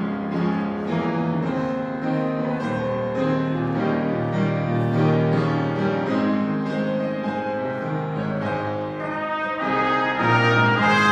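Yamaha grand piano playing a slow melody. About nine seconds in, two trumpets join in and the sound grows louder and brighter.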